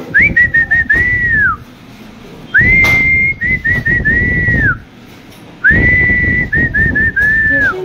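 A person whistling a short tune in three phrases. Each phrase mixes held and short notes around one pitch and ends in a long note that drops away.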